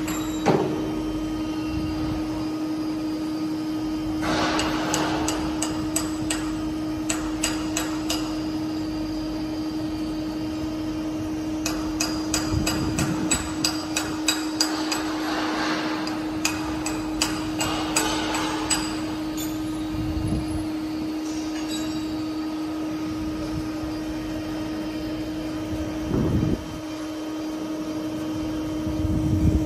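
Hammer blows on metal in a factory hall, sharp knocks coming in quick runs from about four seconds in and again from about twelve seconds in, over a steady hum.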